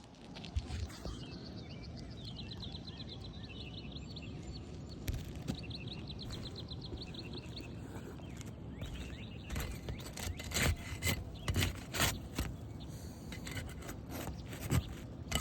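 Tool knocking and scraping against asphalt roof shingles, several sharp strikes in the second half, as work on a damaged shingle begins. Earlier, a rapid high ticking trill sounds twice over a steady outdoor background.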